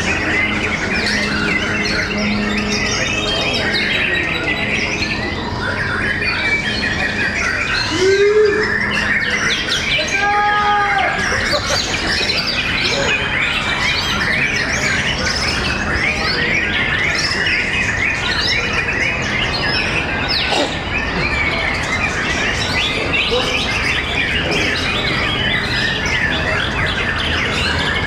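Several caged white-rumped shamas singing at once, a dense continuous jumble of quick chirps, trills and rapid song phrases. A few lower, slower arched whistled notes stand out about eight to eleven seconds in.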